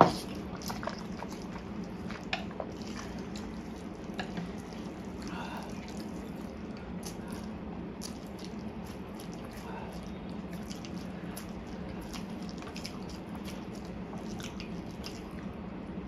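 Close-up slurping and chewing of saucy Korean fire noodles eaten with chopsticks: many short wet smacks and clicks from the mouth, with one sharp click right at the start, over a steady low hum.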